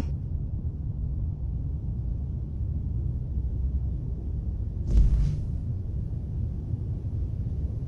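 Steady low rumble of an outdoor field recording, with one short, high, animal-like call about five seconds in.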